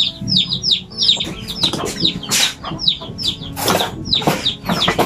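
Chicks peeping without a break, short falling peeps about three a second, with a few brief clatters in the second half.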